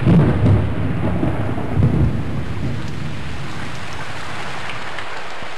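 Thunder rumbling over steady rain. The loudest rolls come at the very start and about two seconds in, then the thunder dies away, leaving the even hiss of the rain.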